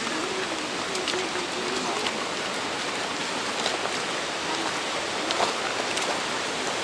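Steady rushing hiss of the Tar waterfall, falling water spattering and splashing, with scattered sharp splash ticks.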